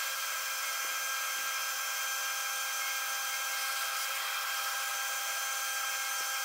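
Milling machine spindle running as a high-speed steel end mill cuts across a small dog clutch blank, throwing chips: a steady whine with several held tones.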